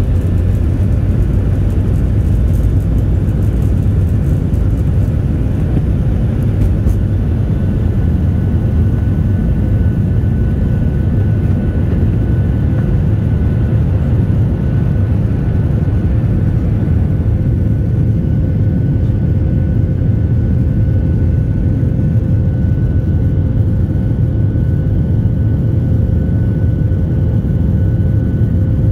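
Cabin noise of a twin-engine jet airliner at takeoff thrust, through the end of the takeoff run, liftoff and climb-out: a steady low rumble with a faint steady whine above it.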